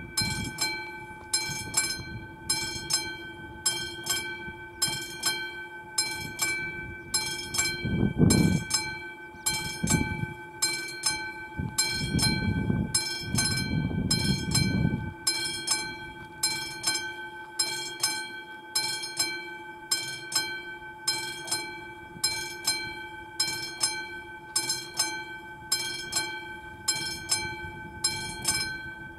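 Classic mechanical bell of an AŽD 71 level-crossing signal struck over and over at a steady, even rhythm, each stroke ringing on: the crossing's warning that a train is approaching. About a third of the way in, a few seconds of low rushing noise rise under it.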